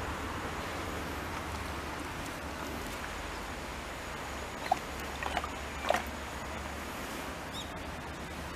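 Steady outdoor background noise with a low rumble, broken a little past the middle by three short high squeaks, the loudest sounds, and a faint quick falling chirp near the end.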